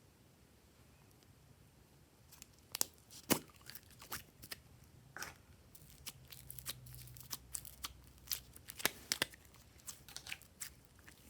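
Slime being squished and stretched by hand, making irregular sharp pops and clicks that begin about two seconds in.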